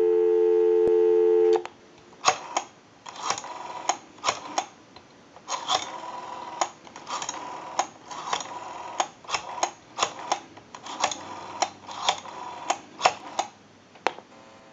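Dial tone, two steady low tones, from the off-hook Western Electric Princess telephone, cutting off about a second and a half in. Then the phone's rotary dial is wound and let go digit after digit, with runs of sharp clicks as it spins back and pulses out the number.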